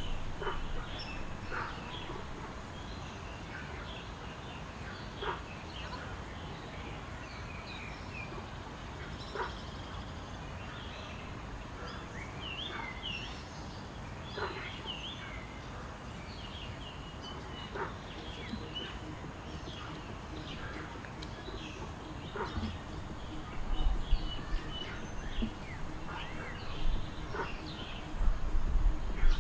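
Birds chirping and calling over a steady outdoor background hiss, with short clear calls every few seconds. Low rumbling bumps set in near the end.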